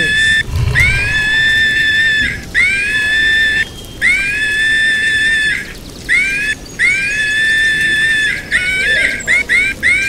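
Mongoose squealing: four drawn-out high squeals, each rising at the start and then holding steady, followed near the end by a quick run of short chirps.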